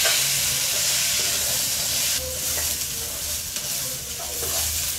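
Shallots, coconut pieces, dried red chillies and whole spices sizzling in a little hot oil in a metal kadai while being stirred with a spatula. The sizzle eases slightly about two seconds in.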